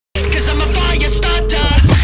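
Background music with a deep, steady bass line, starting just after the beginning.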